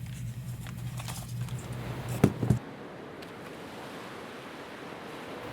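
Quiet handling noises: a few light clicks and a rustle over a low steady hum, which cuts off about two and a half seconds in.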